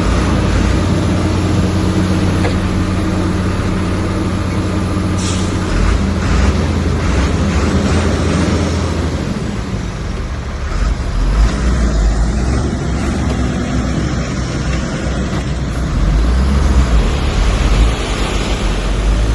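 Heavy diesel engines of a bulldozer and dump trucks working: a loud, steady low engine drone that shifts in pitch several times and grows louder near the end, with a brief high hiss about five seconds in.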